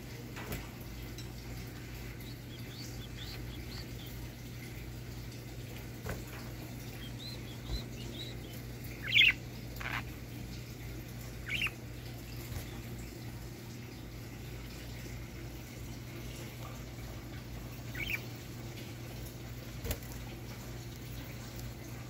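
Budgerigars giving a few short, sharp chirps and some faint warbling chatter, the loudest chirp about halfway through, over a steady low hum, with a couple of small clicks.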